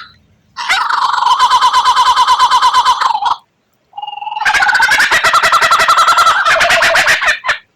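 White-rumped shama (murai batu) singing two long phrases of rapid-fire repeated notes, the 'tembakan' style of its song, with a short pause between them.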